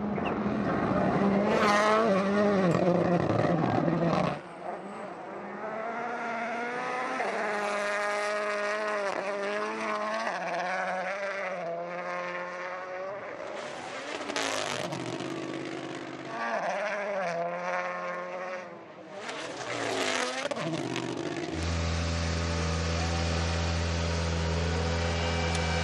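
Rally cars at full throttle, engines revving hard and dropping back through gear changes in several separate runs. Near the end a steady low hum takes over.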